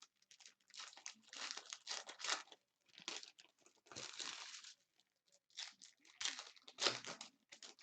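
Plastic trading-card pack wrappers crinkling and tearing in irregular bursts as packs are ripped open and handled.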